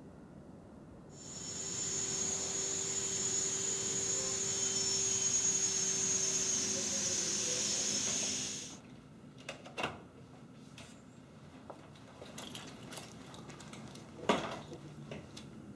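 A machine runs steadily with a high hiss and a low hum for about seven seconds, then stops. Scattered light clicks and knocks follow, with one sharper knock near the end.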